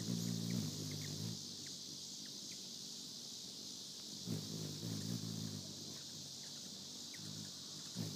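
Hummingbird's wings humming in three short bouts as it flutters at a feeder: at the start, about four seconds in, and again at the end as it flies off. A steady high chirring of crickets goes on behind.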